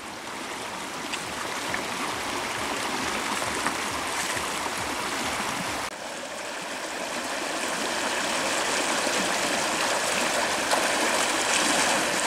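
Shallow, rocky river rushing steadily over stones. It dips briefly about six seconds in, then slowly swells again.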